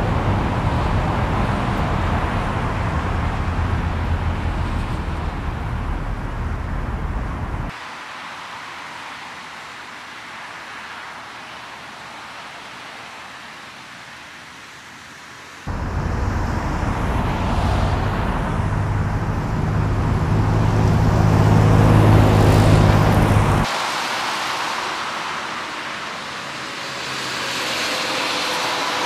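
Highway traffic, cars and trucks passing in a steady rush, recorded with two different microphones. The sound switches abruptly about every eight seconds between a version with a heavy low rumble and a thinner one with less bass. A passing vehicle swells louder shortly before the second switch.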